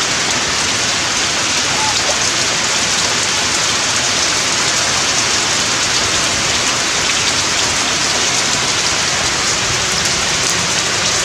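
Steady rain falling, an even hiss of many drops that holds without change.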